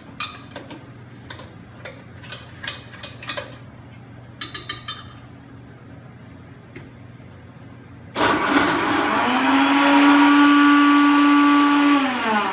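A few light clinks and knocks, then about eight seconds in a blender starts and runs loud, its motor rising to a steady pitch as it blends Gatorade and ice chunks into a slushie, and begins to wind down near the end.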